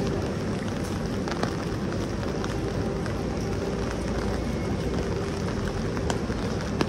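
Rainy city street ambience: a steady wash of traffic and rain noise with a constant low hum under it, broken by a few sharp ticks, the loudest near the end.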